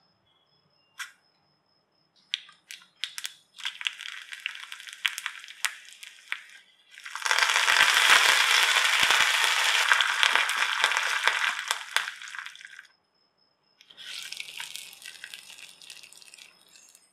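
Tempering frying in hot oil in a small steel pan. Mustard seeds crackle and pop in scattered snaps, then a loud, dense sizzle and spluttering starts about seven seconds in as dry red chillies and curry leaves hit the oil. After a short break a quieter sizzle returns near the end.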